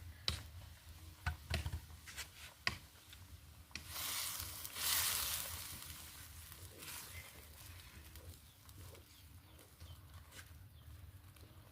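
Cooking at a pot: a few sharp knocks of a utensil against the pot in the first three seconds, then a hiss that swells for about two seconds and fades.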